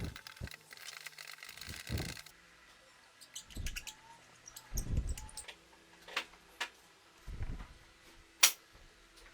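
Scattered knocks and clicks of objects being handled. The first two seconds or so hold a busy rustling hiss, then come several dull thumps and one sharp click, the loudest, near the end.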